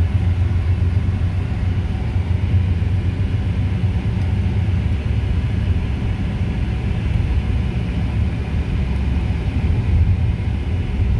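Steady low rumble of a car on the move: tyre and engine noise heard from inside the cabin.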